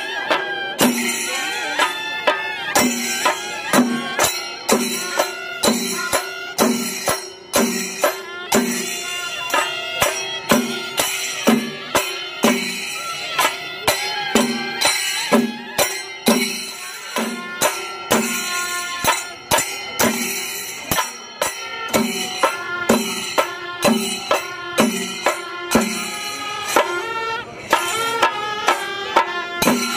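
Traditional percussion music: a deep drum beat about once a second under jingling cymbal strokes, with a wavering melody over a held drone.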